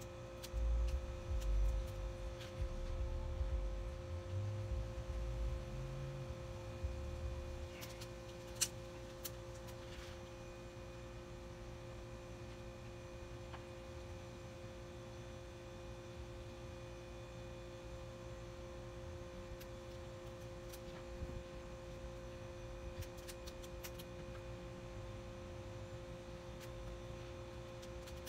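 A steady two-note hum runs throughout, with a low rumble during the first seven seconds. A few faint sharp clicks come at about eight to ten seconds in and again near the end.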